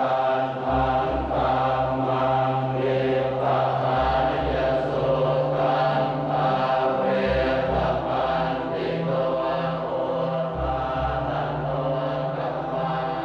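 Buddhist monks chanting in unison, a steady low recitation, over a deep bass tone that shifts about every three seconds.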